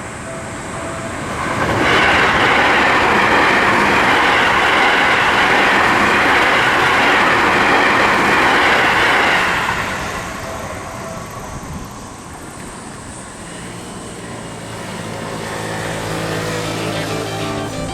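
Seibu Haijima Line train, the Haijima Liner, running past a level crossing. Its steady rush of wheels on rail swells about two seconds in, holds loud for about eight seconds, then dies away.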